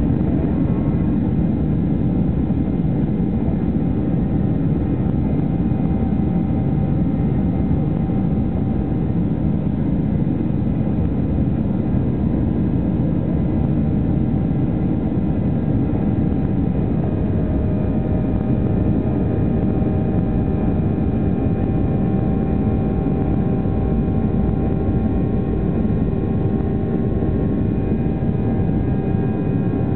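Cabin sound of a Boeing 737-800 taxiing: the CFM56 jet engines running at a steady low power with a dense rumble and several faint steady whining tones, and no build-up to take-off thrust.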